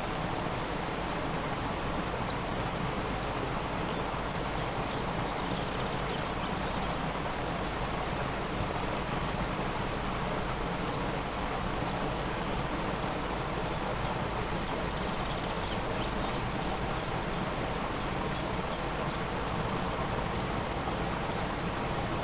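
Waterfall rushing steadily, with a small bird singing quick, high chirps and trills from a few seconds in until near the end.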